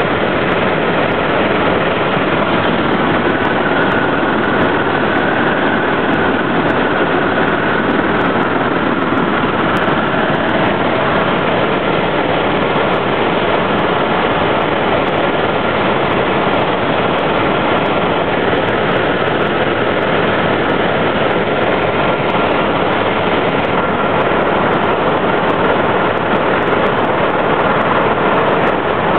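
Helicopter in flight heard from inside the cabin: loud, steady engine and rotor noise.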